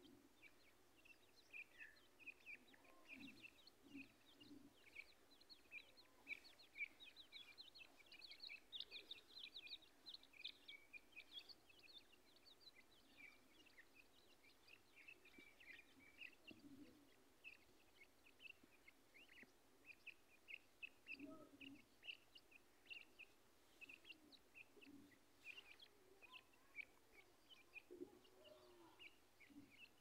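A brood of teetar partridge chicks peeping: many short, high cheeps overlapping one another, busiest in the first half.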